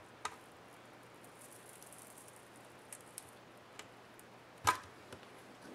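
Scattered small clicks and taps of fingers handling the edge of a laptop LCD panel, with a faint hiss in between. The loudest click comes about three-quarters of the way through.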